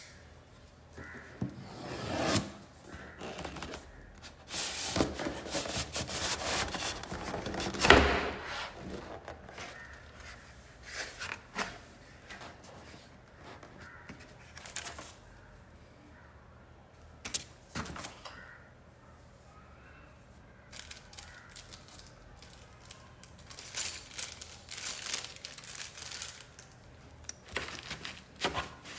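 Mechanical keyboard packaging being unboxed: tearing and crinkling of wrapping, with a loud knock about eight seconds in, then scattered light clicks and knocks as parts are handled.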